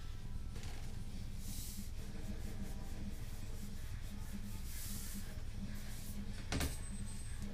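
Rubbing and scraping handling noises from a tripod and ball head being turned over in the hands, with one sharp click about six and a half seconds in, over a steady low hum.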